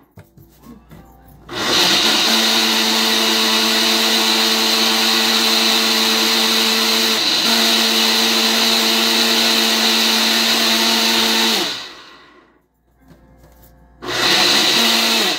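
Personal single-serve blender blending a thick fruit-and-spinach shake: the motor runs steadily for about ten seconds with a brief dip partway through, stops, then runs again for about a second near the end.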